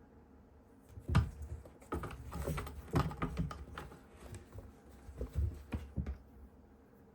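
A cat playing with a teaser wand toy: an irregular run of soft knocks, scuffs and rustles that starts about a second in and dies away near six seconds.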